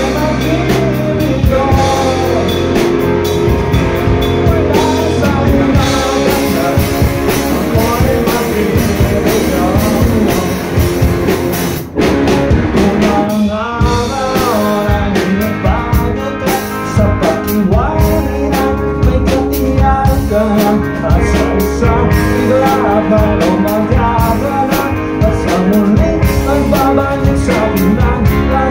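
Live rock band playing: electric guitar, bass and drum kit with a sung lead vocal. The music breaks off for a moment about twelve seconds in, then carries on.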